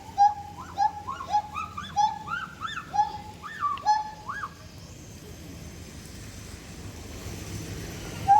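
Siamangs calling: a rapid series of loud hooting whoops, many rising then falling in pitch, coming about two a second and speeding up. They break off about four and a half seconds in, and one more call comes at the very end.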